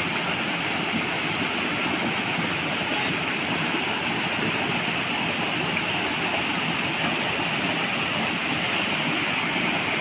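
Fast muddy floodwater rushing and churning steadily around a half-submerged combine harvester.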